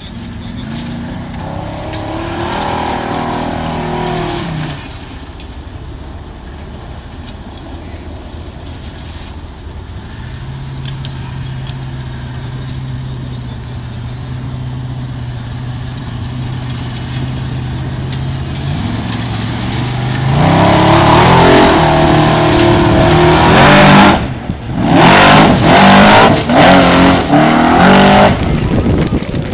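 Formula offroad car's V8 engine, revved briefly near the start and then held at a steady note. About two-thirds of the way in it goes to full throttle in loud, rising bursts as the car charges up a steep sand hill, cutting out briefly once before revving hard again.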